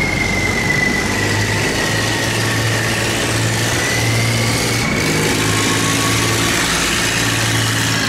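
Engine of a self-propelled cargo barge running as it passes close by: a steady low drone with a high howling whine that slowly drops in pitch.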